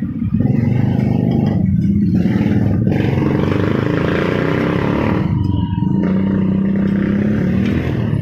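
Loud, steady engine noise of motor traffic close by, with a low pitch that wavers and holds.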